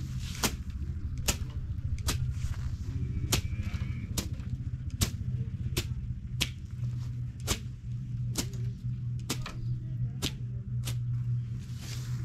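Hand slasher swung through tall grass, a regular series of sharp swishing cuts a little faster than one a second, over a steady low hum.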